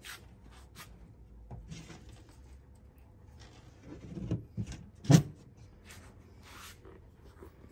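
Scattered light scuffs and short rustles, with a louder scraping cluster about four seconds in and one sharp knock just after five seconds, the loudest sound.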